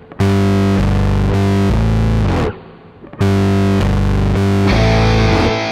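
Rock music with a distorted electric guitar riff, played in loud blocks broken by a sudden stop about two and a half seconds in, then coming back fuller about five seconds in.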